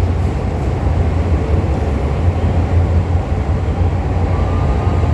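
MTR M-Train running at speed, a steady, loud low rumble of wheels on rail and running gear. A faint steady tone joins in near the end.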